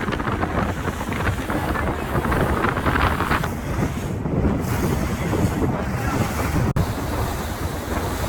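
Wind buffeting the microphone over the rush of water and engine noise of a motorboat under way, with a brief break about two-thirds of the way through.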